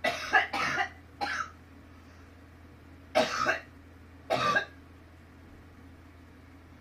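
A person coughing in two fits: three coughs in the first second and a half, then two more about three seconds in.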